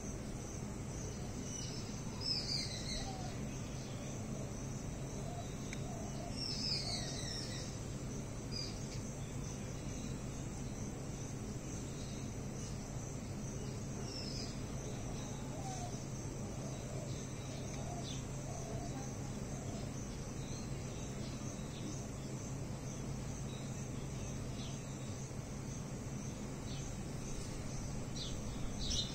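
Outdoor ambience of insects trilling steadily, with a few short chirping bird calls about two and seven seconds in and again near the end, over a low steady hum.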